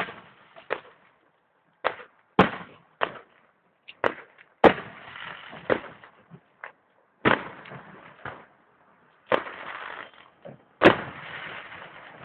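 Aerial fireworks going off: a dozen or so sharp bangs of bursting shells at irregular intervals, several trailing off in about a second of crackling rush.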